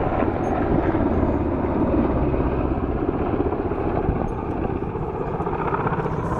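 Helicopter hovering close by, its rotor and engines making a steady, loud rush of noise that eases slightly about two-thirds of the way through.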